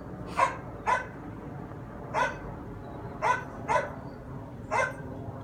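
A dog barking: six short, sharp barks at uneven intervals.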